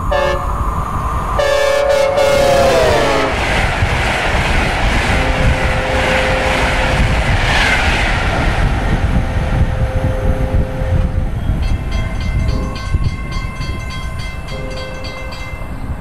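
Synthesizer recreation of a Nathan K5LA five-chime air horn on a passing high-speed train. A short blast comes first, then a longer blast whose chord drops in pitch as the train goes by. After that comes a long stretch of rushing rumble and rail clatter, with fainter horn tones near the end.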